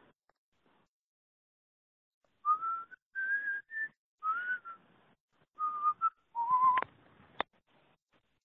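A man whistling a tune in several short phrases, its pitch stepping up and down, starting a couple of seconds in. Two sharp clicks come near the end.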